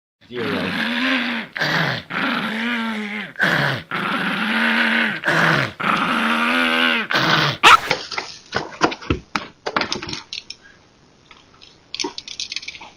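A dog making about five long, drawn-out vocal sounds in a row, each rising then falling in pitch, with a few short ones between. After them comes a loud sharp click, then scattered knocks and taps.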